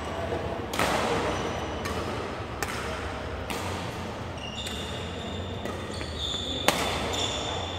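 Badminton rally: rackets hitting the shuttlecock roughly once a second, each hit a sharp crack that echoes in the large hall. High squeaks from the players' shoes on the court floor come in the second half.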